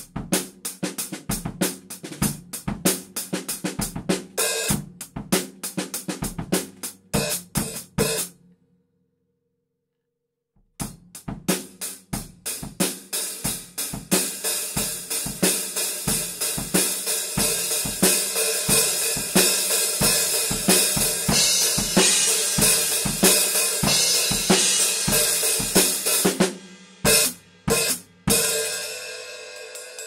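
Sabian AAX 14-inch X-Plosion hi-hat cymbals struck with a drumstick in a fast, even pattern of short, separate strokes. After a pause of about two seconds the playing resumes, and the strokes run together into a continuous bright wash for about twelve seconds. It ends with a few single strikes and the cymbals ringing out.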